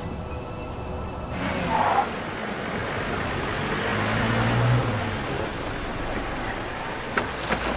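A car driving, its engine and tyre noise coming in suddenly about a second and a half in, with a brief squeal just after; a few sharp clicks near the end.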